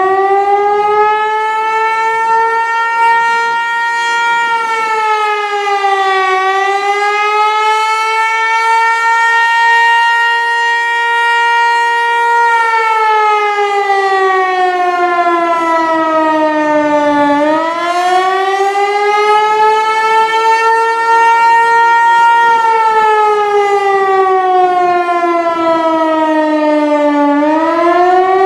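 Federal Signal Eclipse 8 outdoor warning siren sounding its monthly test as a wail: one loud, steady tone that holds its pitch, then slides down and climbs back up, three times. The rise back up is quick each time; the second and third falls are long and slow.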